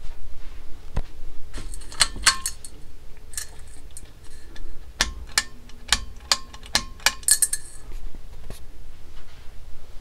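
Irregular sharp metallic clinks and taps, each ringing briefly, as a hand handles the metal switch and motor housing of a CEC spinner ceiling fan. They bunch up around two seconds in and again from about five to eight seconds, over a faint steady hum.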